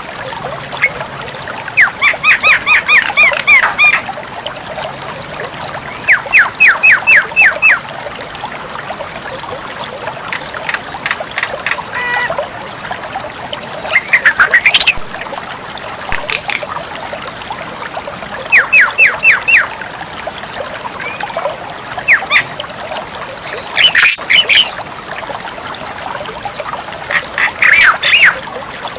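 Javan myna (jalak kebo) calling in repeated bursts of rapid, harsh, chattering notes, each burst about one to two seconds long and recurring roughly every four seconds, over a steady background hiss.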